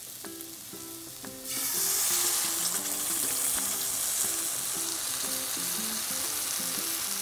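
Minced garlic sizzling quietly in oil in a frying pan. About one and a half seconds in, cream is poured into the hot pan and the sizzle jumps to a loud, steady hiss.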